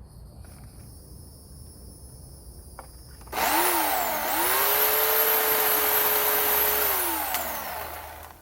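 Bauer 16-inch corded electric chainsaw switched on about three seconds in: its motor whine rises quickly, dips briefly, then holds steady for about three seconds before falling away as the motor winds down.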